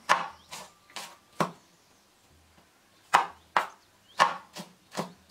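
Kitchen knife chopping spring onion bulbs, each stroke a sharp knock on the cutting board: four quick chops, a pause of about a second and a half, then five more.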